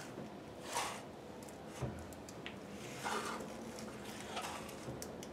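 Cast-iron milling machine table pushed along its dovetail ways by hand: faint scraping with a few soft knocks about a second apart as it binds, which is taken for the table hitting the nut.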